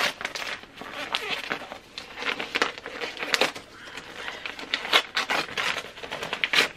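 Thin white gift wrapping being crinkled and torn open by hand, in a run of irregular crackles and rustles with a few sharp rips.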